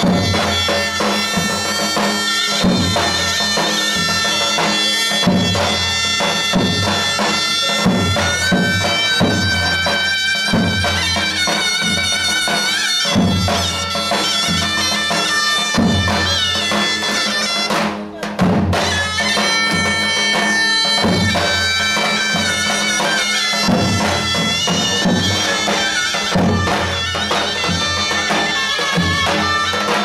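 Turkish davul drum-and-zurna folk music: a shrill double-reed zurna melody over the steady, booming beat of two davul bass drums struck with mallets.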